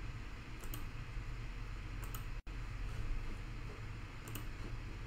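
A few faint clicks at a computer over a steady low hum, with the sound dropping out for an instant about halfway through.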